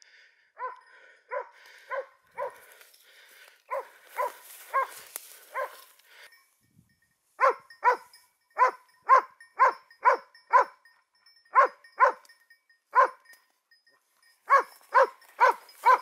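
A dog barking over and over in short, sharp barks, about two a second, with a couple of brief pauses.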